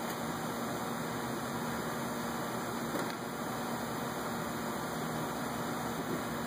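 Steady hiss and low hum of workshop background noise, like ventilation running, with one faint click about three seconds in.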